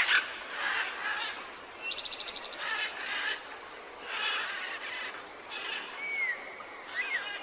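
Tropical forest ambience of several birds calling over one another: short whistled notes, chattering bursts, and a fast rattling trill about two seconds in.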